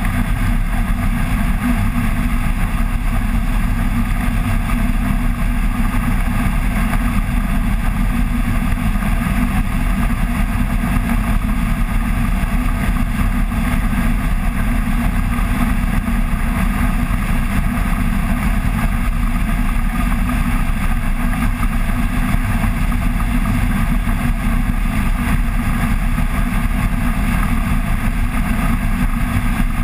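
Flex-wing microlight trike's engine and rear pusher propeller running steadily at cruise in flight, mixed with a heavy low rush of wind.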